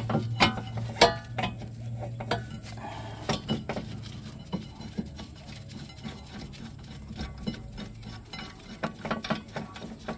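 Irregular metal clinks and knocks as a rear brake caliper bracket and its loosened bolts are worked free by hand against the hub and rotor.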